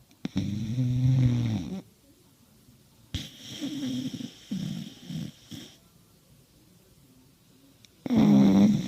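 A sleeping pet snoring: a long snore at the start, a broken run of shorter snores in the middle, and another long snore near the end, with quiet pauses between breaths.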